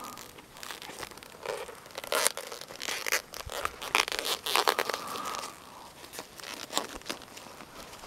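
Plastic snack wrapper crinkling and crackling as it is handled and opened by hand, in irregular bursts that are busiest in the middle.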